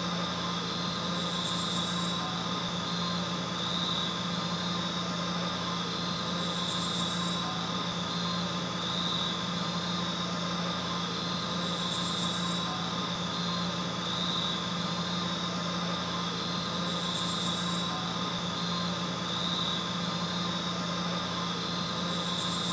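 A steady droning hum with a constant low tone and a higher whine, and a brief high shimmer that comes back about every five seconds.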